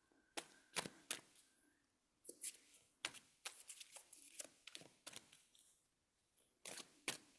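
Deck of cards being shuffled by hand: soft, irregular flicks and snaps of cards, faint.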